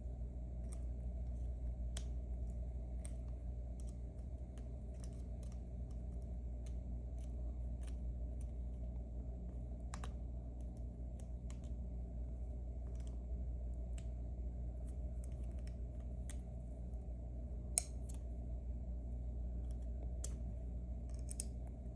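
Scattered small metallic clicks and taps of tools and parts on an M&C Matrix lock cylinder being taken apart, with one sharper click a little after halfway and a quick cluster near the end. A steady low electrical hum runs underneath.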